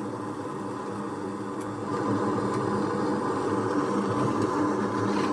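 A machine running steadily with a low hum, growing a little louder and gaining a higher steady tone about two seconds in.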